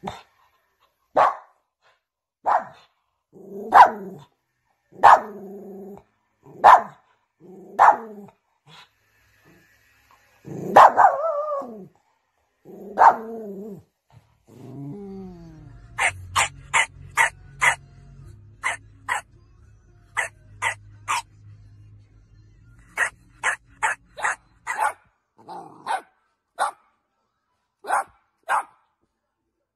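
Dogs barking. First comes a run of single barks about one a second, then a short falling whine. After that a quick series of high-pitched yips follows, and then more spaced barks.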